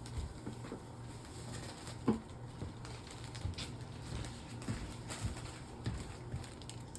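Faint, scattered light knocks and rustles of vegetables and their bags being handled and set into a fridge, the sharpest knock about two seconds in, over a steady low hum.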